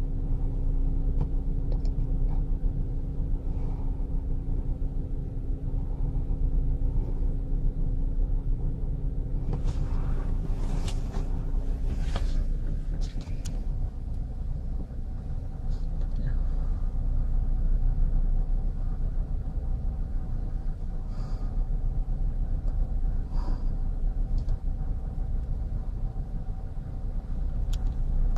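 Ship's engine running with a steady low rumble and a constant hum, with a few short clicks or knocks about ten to thirteen seconds in.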